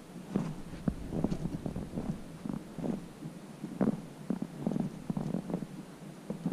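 Footsteps in snow, walking downhill over rough ground: a string of soft, uneven steps, about two a second.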